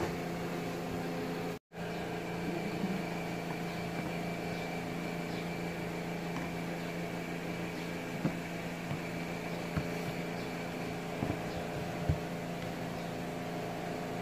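Steady electric motor hum from a fan or running kitchen appliance, with a few light knocks and clicks from hands working dough in a plastic bowl. The sound cuts out completely for a moment about a second and a half in.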